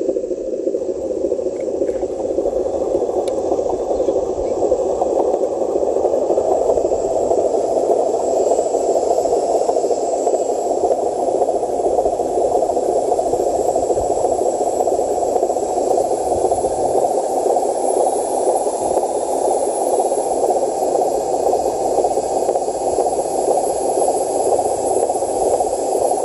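Radio-controlled model trucks running, a steady rattling drone.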